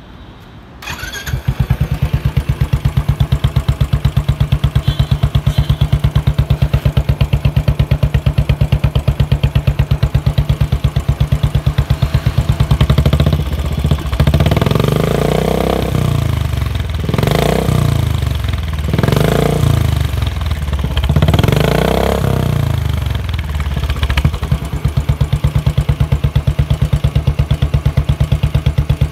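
Royal Enfield Bullet 500's single-cylinder engine starting about a second in, then idling with a rapid, even beat through an aftermarket M-S Racer silencer. Around the middle it is revved several times in short throttle blips, then settles back to idle.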